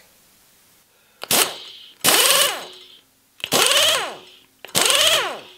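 A milling machine's power drawbar running in four short bursts, each starting sharply and dying away with a falling whine. The drawbar has just been reassembled and is being cycled to check that it engages the drawbar.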